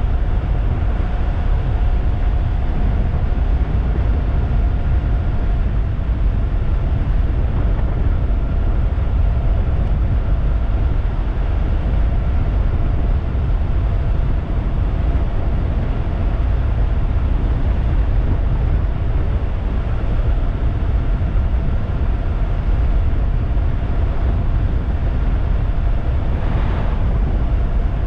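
Wind buffeting the microphone of a 3000-watt DIY e-bike at a steady high speed, with a steady high whine from the bike's electric motor running under it.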